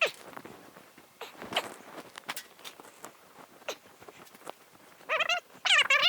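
Scattered light clicks and knocks of work at the bench, then about five seconds in a loud warbling fowl call with a wavering pitch, like a turkey gobbling.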